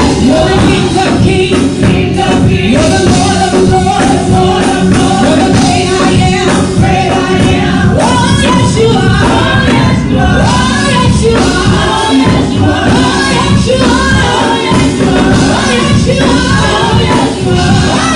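Live gospel music: a choir singing with a full band accompaniment, loud and rhythmic.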